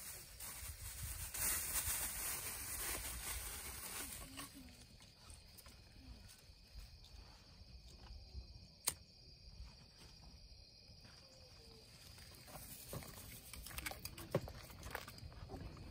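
Plastic bag crinkling for the first few seconds. A single sharp click of a lighter comes about nine seconds in. Sparse crackles follow near the end as the kindling of a wood campfire catches.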